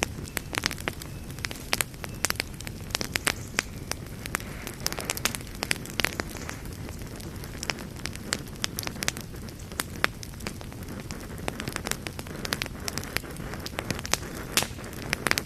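Campfire crackling: many irregular sharp pops and snaps over a steady low hiss of burning wood.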